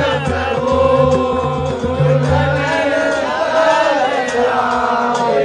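Devotional pad singing (samaj gayan) by a group of voices, with a drum beating underneath that stops about halfway through.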